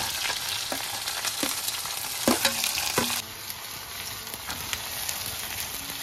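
Sliced onions sizzling in hot oil in a metal kadai, with a metal ladle clinking and scraping against the pan as they are stirred, the clinks coming several times in the first three seconds.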